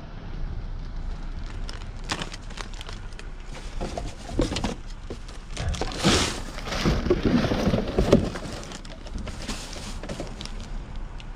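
Plastic trash bags and snack packaging crinkling and rustling, with scattered knocks and scrapes, as gloved hands and a reacher-grabber rummage through dumpster trash. The handling is busiest and loudest through the middle.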